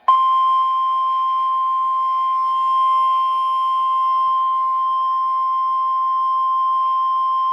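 NOAA Weather Radio 1050 Hz warning alarm tone: a single loud, steady tone held without a break, sounded as part of the weekly test of the alarm system.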